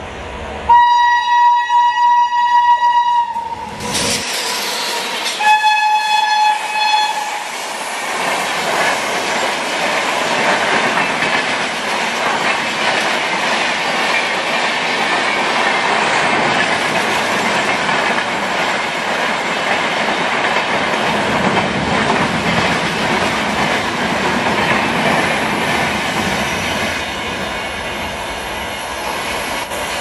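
WAP-7 electric locomotive's twin-tone horn sounds twice, a long blast of about two and a half seconds, then a shorter one a few seconds later. The express then passes close by with a loud, steady rush and clickety-clack of coach wheels on rail, easing slightly near the end as it moves away.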